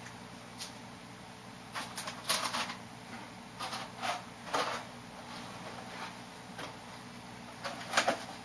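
Someone moving about and handling things: scattered knocks, clicks and rustles in several short clusters, over a faint steady hum.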